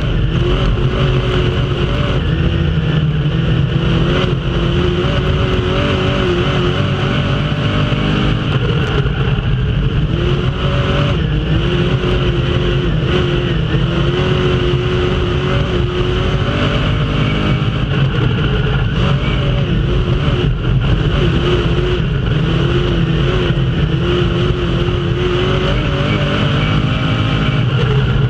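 Dirt-track race car's engine running hard at racing speed, heard from inside the cockpit. It is loud and continuous, its pitch climbing and then dropping back every several seconds as the car laps the oval.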